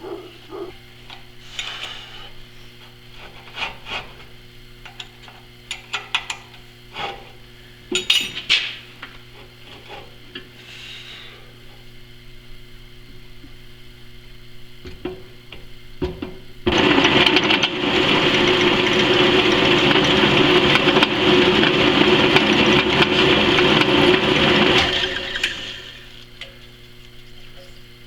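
Scattered knocks and clicks of metal parts being handled on the bench, then, about seventeen seconds in, a power tool starts abruptly and runs loud and steady for about eight seconds before cutting off.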